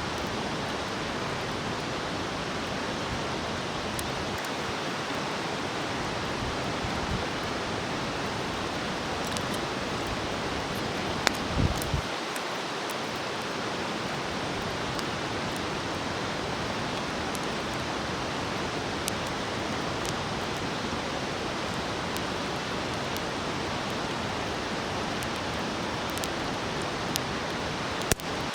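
Food sizzling on a hot iron plate over a wood fire: a steady hiss with scattered sharp pops and crackles, and a short louder knock about eleven seconds in.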